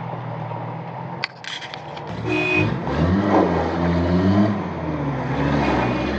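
A motor vehicle engine idling, a couple of clicks, then the engine revving up and down as the vehicle pulls away.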